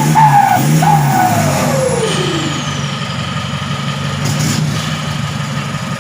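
Vehicle engine through a 6-inch exhaust tip: two quick throttle blips whose pitch falls away, then the revs drop and it settles into a steady idle.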